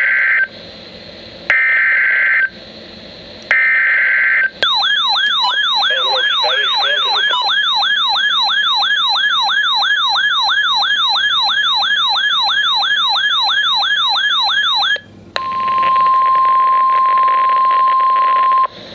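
A NOAA Weather Radio SAME alert sequence. It opens with short screeching digital header bursts about a second apart. Then a weather-alert radio's siren warbles with repeated rising sweeps, about two and a half a second, for roughly ten seconds. It ends with the steady 1050 Hz warning alarm tone for about three seconds.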